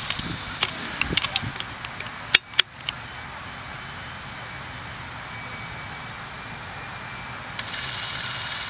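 A few sharp clicks, then about a second before the end a Revere 88 8mm cine camera's spring-wound clockwork motor starts up, a steady high-pitched whir as it runs film.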